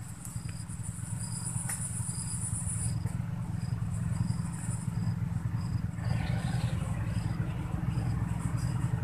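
Insects chirping: a short high chirp repeating about every two-thirds of a second, with a high buzzing trill in the first three seconds. Under them runs a steady low rumble, the loudest sound.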